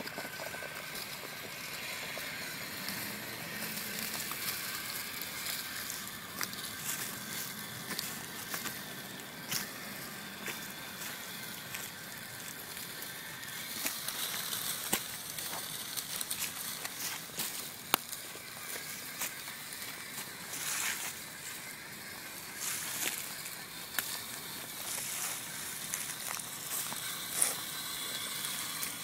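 RC4WD Timberwolf scale rock crawler driving over rock and dry leaf litter: a faint electric motor and gear whine, tyres crunching and crackling through the leaves, and scattered sharp clicks and knocks, two of them louder near the end.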